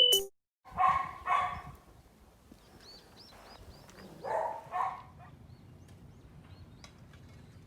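A dog barking in two pairs of short barks, about three seconds apart, while birds chirp faintly.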